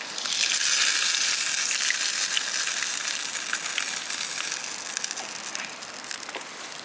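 Lamb pieces sizzling in hot fat in a large cauldron over a fire as they are turned and lifted out; a burst of sizzling swells just after the start and slowly dies away, with scattered pops.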